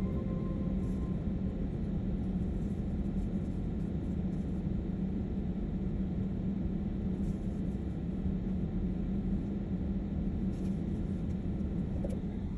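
A steady low rumble with a constant low hum running under it.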